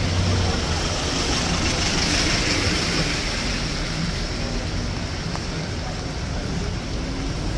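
Rainy city street ambience: a steady hiss of rain and traffic on wet road, swelling about two seconds in as a vehicle passes.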